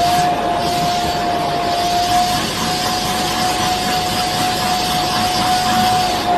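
Vacuum cleaner running: a steady rush of suction through the hose with a steady mid-pitched motor whine, the bare hose end held against a cat's fur.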